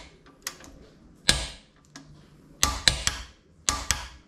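A run of sharp, irregular clicks and knocks, hard parts and tools being handled during work on a motorcycle, with a loud knock about a second in and a quick cluster of clicks near the end.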